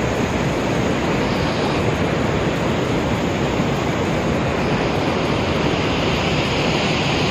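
Rushing water of a river waterfall and its rapids: a steady, even noise with no pauses.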